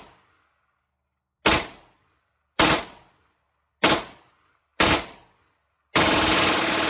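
Compact submachine gun firing outdoors: four single shots about a second apart, then a rapid burst of just under a second near the end.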